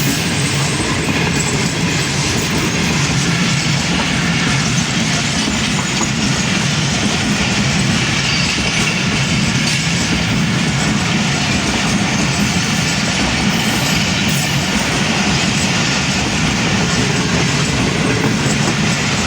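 Passenger train rolling past at speed, a steady loud rumble of wheels on the rails.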